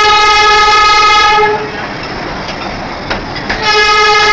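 Darjeeling Himalayan Railway toy train sounding two long, steady blasts on its horn as it runs through a crowded street, over the continuous rumble of the moving train. The first blast lasts about a second and a half; the second starts about three and a half seconds in and is still going at the end.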